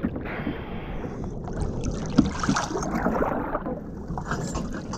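Sea water sloshing and splashing against the side of a boat hull close to the microphone, uneven and splashy, with a sharp slap about two seconds in.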